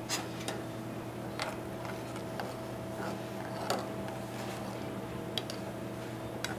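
A few light, irregularly spaced clicks of a spoon against a saucepan as it is stirred, over a steady low hum.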